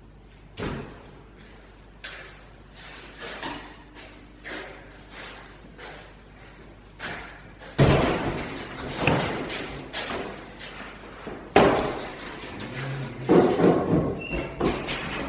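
A string of irregular knocks and thuds, growing busier and louder in the second half, with several heavy bangs or slams.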